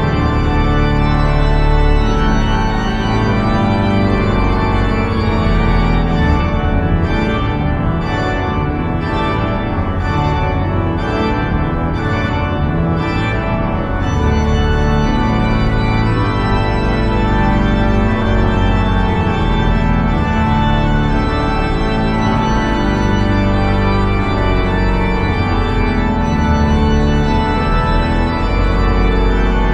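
Church organ playing instrumental music in full, held chords that change every second or two.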